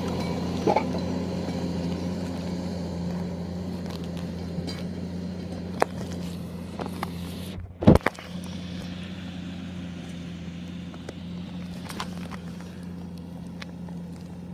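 Case Puma 165 tractor's diesel engine running steadily under ploughing load, gradually getting fainter. About eight seconds in, the sound briefly drops out and is followed by a loud bump.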